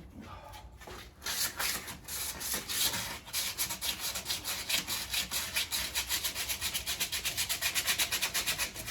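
Sandpaper being rubbed by hand over the painted steel of a car's door jamb, scuffing off the old finish before primer. Quick back-and-forth strokes start about a second in and pick up to about five a second.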